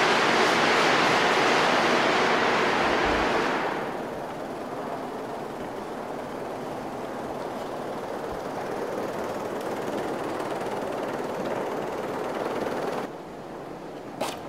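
Steady rushing, rattling noise from sheets of paper vibrating on large upturned loudspeaker cones driven by an audio signal generator. It is loud for the first few seconds, drops to a quieter rush about four seconds in, and drops again near the end, where there is a single short tap.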